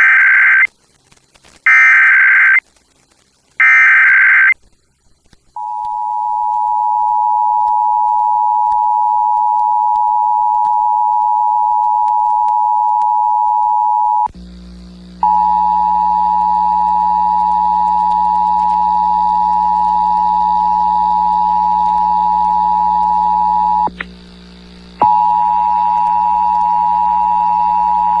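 Emergency Alert System monthly test: three short screeching bursts of the SAME digital header, then the steady two-tone EAS attention signal (853 and 960 Hz) sounding loudly. The tone cuts out briefly twice, and a low electrical hum comes in under it about halfway through.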